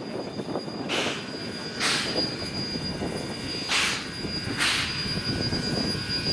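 Baldwin steam locomotive moving slowly under steam, giving four hissing exhaust chuffs in two pairs, over a low rumble and a thin steady high whine.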